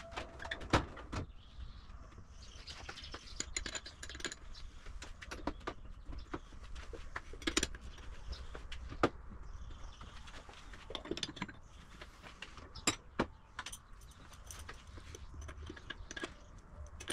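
Irregular metallic clicks and clinks from a wrench and metal parts as a mini lathe's belt tensioner pulley is refitted and tightened down, with a few sharper knocks.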